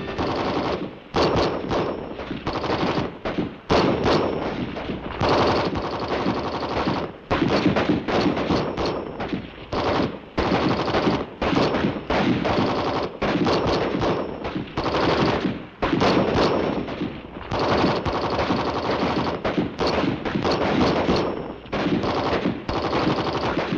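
Small-arms battle fire: rapid bursts of automatic fire mixed with single rifle shots, almost continuous, with short lulls every few seconds.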